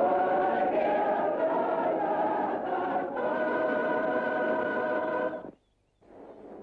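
A choir singing long held notes on an old film soundtrack, with a short break about three seconds in. It cuts off about five and a half seconds in, and after a moment of silence a faint rushing noise comes in.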